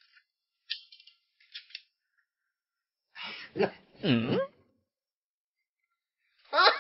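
A few faint clicks, then wordless vocal sounds from a person: one about three to four and a half seconds in that falls in pitch at its end, and a short rising one near the end.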